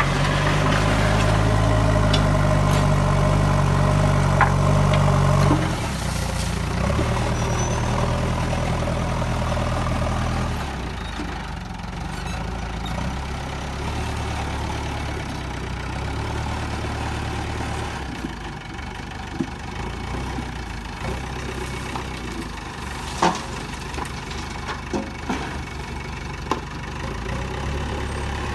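Diesel engine of heavy farm or earthmoving machinery running, held at higher revs for about the first five seconds, then dropping in steps to a lower, steadier speed. A few sharp clanks come in the second half.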